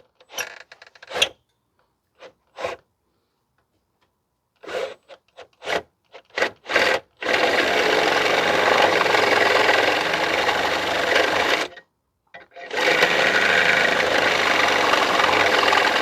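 Power drill with a 3/8-inch cobalt bit boring into soft metal to enlarge a hole: a string of short trigger blips, then two steady runs of about four seconds each with a short pause between.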